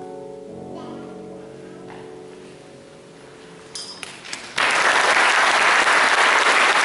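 The last held chord of a women's choir with piano fades away over a few seconds; then, about four and a half seconds in, the audience breaks into loud, steady applause.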